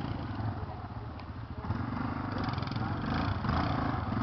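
Quad bike (ATV) engine pulling through rough ground under changing throttle. It eases off about a second in, then gets louder again over the second half as the rider gives it more gas.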